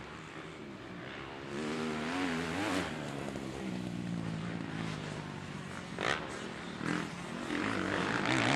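Motocross bike engines running and revving, the pitch wavering up and down and then holding steadier for a while. Two short sharp bursts come about six and seven seconds in, and the engine noise grows louder near the end.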